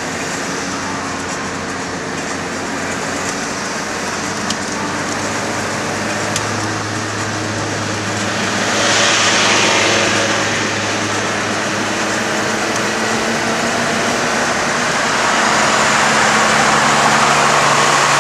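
Car driving at highway speed, heard from inside the cabin: a steady engine note under constant tyre and road noise. The noise turns louder and hissier about halfway through and rises again in the last few seconds.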